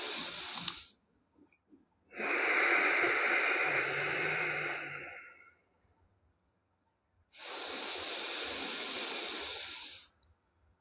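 A person taking slow, deep breaths for a deep-breathing (pranayama) exercise. A long inhale ends about a second in, a long exhale runs from about 2 to 5 seconds, and another long inhale comes near the end, with pauses between. Two sharp clicks come just before the first breath ends.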